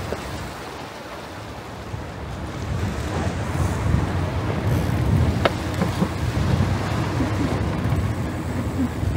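Outdoor street ambience: a steady low rumble of traffic with wind buffeting the microphone, and one sharp click about five and a half seconds in.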